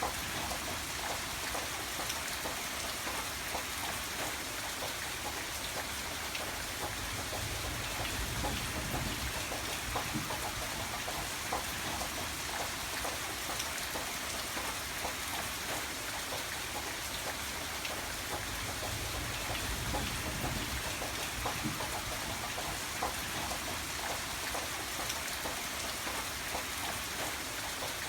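Steady rain falling, with a dense patter of individual drops hitting a surface. A soft low rumble swells twice, about eight and twenty seconds in.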